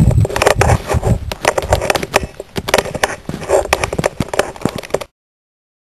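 Footsteps crunching through snow, with knocks from the handheld camera, in an irregular run of crunches that cuts off abruptly about five seconds in.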